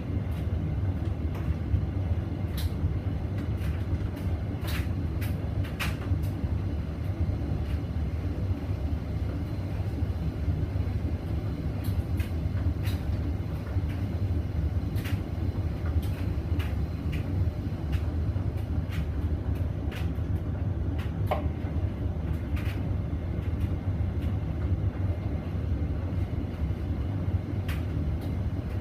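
Hoover VisionDynamic washing machine spinning a load of blanket bedding in its intermediate spin. It makes a steady, loud low rumble, with scattered light clicks and ticks over the top.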